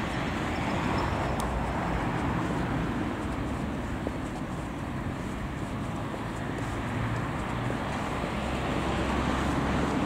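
Car on the move: a steady low engine hum under even road noise.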